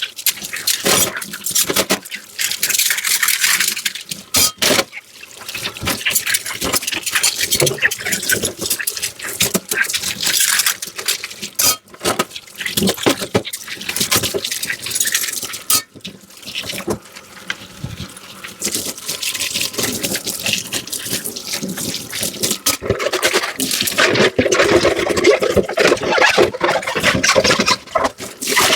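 Tap water running into a kitchen sink while dishes are washed, the stream breaking off now and then, with a few sharp clinks. Near the end a vessel fills under the stream.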